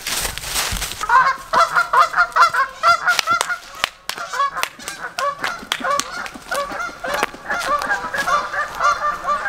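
A group of Canada geese honking over and over, many calls overlapping, starting about a second in: the alarmed calling of geese being chased off. Sharp footfalls on dry leaves break in throughout as a person runs at them.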